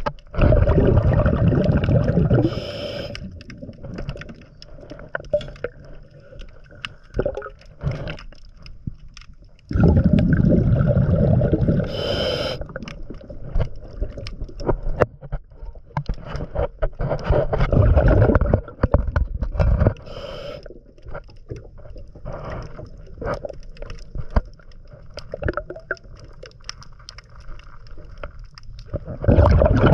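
Underwater scuba breathing: the diver's regulator exhaust bubbles rumble out in bursts of two to three seconds, four times, with quieter crackling and clicking between breaths.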